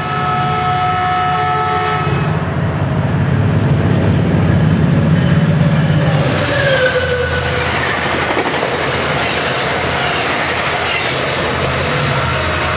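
Caltrain passenger train with an MP36PH-3C diesel locomotive passing at speed. The horn chord sounds for the first two seconds, then the locomotive's engine rumble swells and passes, loudest a few seconds in. A short falling whine comes about six seconds in, and after it the steady clatter of wheels and cars as the train goes by.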